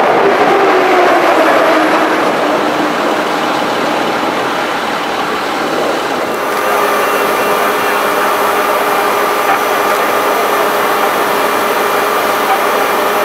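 Unlimited hydroplane's turbine engine whining, its pitch falling slowly over the first several seconds. About six seconds in the sound changes abruptly to a steady, high turbine whine.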